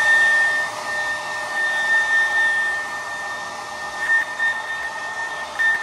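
Handheld hair blow dryer running steadily: a high motor whine over the rush of air.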